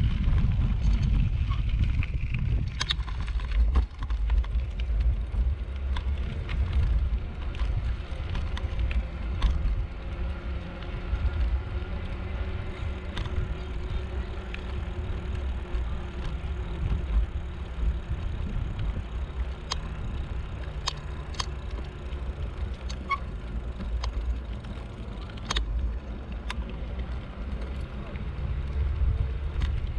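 Wind rumbling on a GoPro microphone during an e-bike ride on a paved path, with a faint steady hum underneath and occasional sharp clicks and rattles from the bike.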